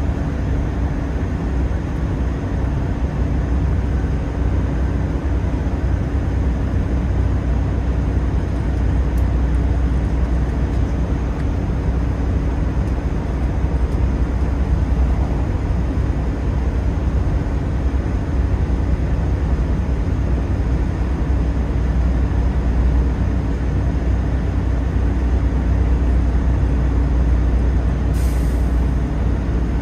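Class 166 diesel multiple unit heard from inside the passenger saloon while running at speed: a steady low rumble of underfloor diesel engines and wheels on rail, with a steady hum. A brief hiss near the end.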